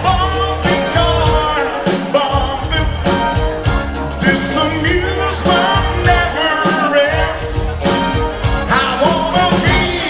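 A live band playing a rock song with a singer, over a steady drum beat.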